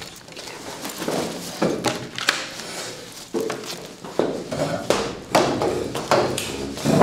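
Things being gathered up from a desk and a bag picked up: irregular knocks, taps and rustling, with footsteps near the end.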